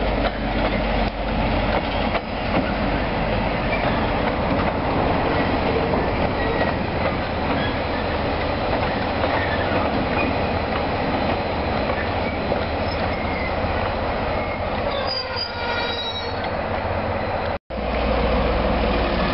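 DC class diesel-electric shunting locomotive moving through a rail yard with a container flat wagon: a steady rolling rumble of engine and wheels on the track, with some wheel squeal.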